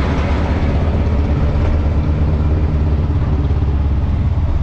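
A motor vehicle's engine running at a steady speed, an even low drone that holds one pitch throughout.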